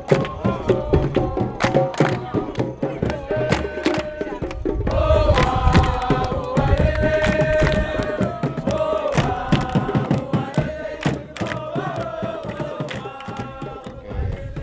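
Drum ensemble playing a fast rhythm of sharp strikes, with a group of voices chanting a held melody over it.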